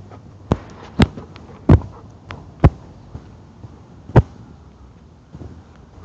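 Footsteps going down concrete steps: five sharp, heavy thumps at uneven spacing.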